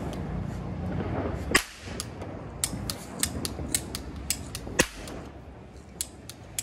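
Toy cap-gun revolver firing: two loud, sharp cracks, about a second and a half in and again near five seconds, with many fainter sharp clicks in between.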